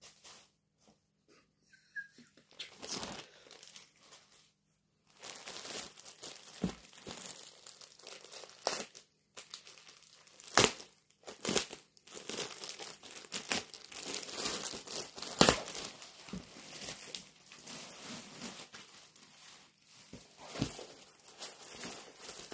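Clear plastic polybag around a folded garment crinkling and rustling as it is handled, with several sharper crackles. It is sparse and faint for the first few seconds, then crinkles almost continuously.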